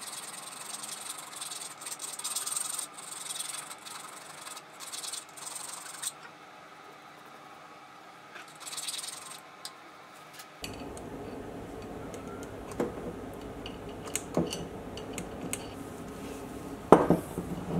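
Small hand file rasping along a machined metal edge of the dividing head's base in repeated strokes, taking off burrs left from the factory. The strokes fill the first six seconds or so, and one more comes near the middle. In the second half there are a few light clicks and taps of metal parts being handled.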